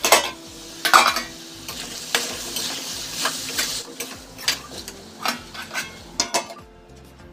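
A steel spoon stirring potato and pointed gourd (parwal) pieces in a steel kadhai, scraping and clinking against the pan, with a louder clank about a second in. A light sizzle from the frying vegetables fades away.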